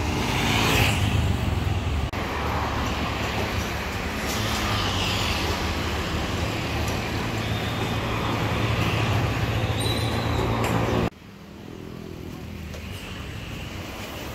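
Road traffic: motorbikes and cars running past on the road, over a steady low engine hum, with passes swelling and fading near the start and again around four to five seconds in. About eleven seconds in the traffic cuts off suddenly to a quieter background.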